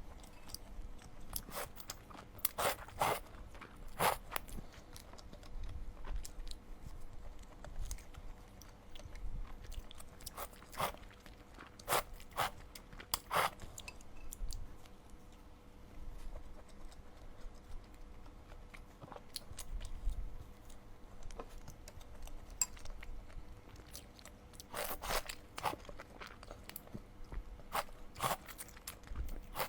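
Close-miked chewing of crunchy food, with clusters of sharp crunches about three seconds in, around twelve seconds in and again around twenty-five seconds in, and softer chewing between.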